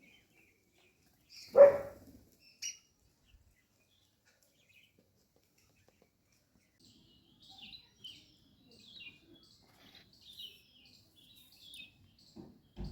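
Small birds chirping, many short high calls over the second half. One loud, short sound about a second and a half in stands out above them.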